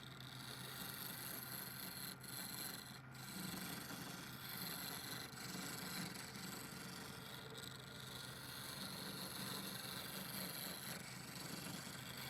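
Woodturning lathe running with a steady hum while a tool or abrasive rubs continuously against the spinning wood, a scraping sound.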